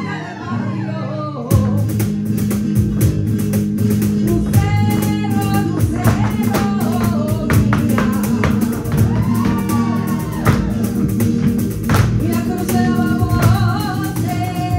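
Live flamenco music: a singer over guitar, with a fast run of sharp percussive strikes from a cajón and the dancers' heeled feet kicking in about a second and a half in.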